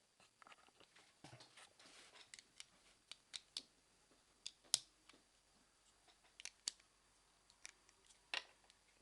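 Faint, scattered sharp clicks and taps of a plastic and metal Beyblade top, L-Drago Guardian D125B, being fitted together by hand, with the loudest click a little under five seconds in.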